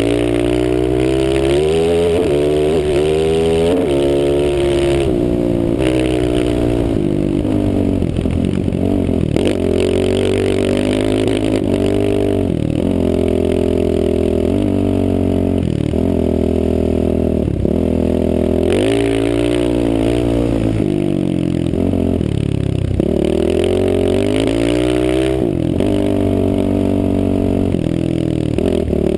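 Off-road vehicle engine revving up and falling back over and over as the throttle is worked, its pitch rising and dropping every couple of seconds, heard from a helmet-mounted camera.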